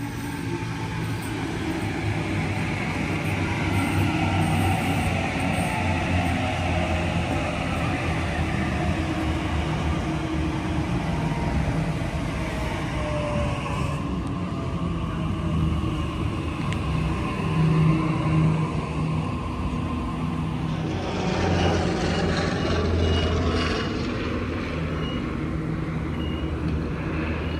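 Sydney Trains electric passenger train running through the station: a steady rumble with a motor whine that glides down in pitch through the first half, then a louder rushing noise of wheels on rail.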